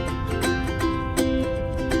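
Instrumental music: a plucked, ukulele-like strummed figure repeating over a low backing, with no voice.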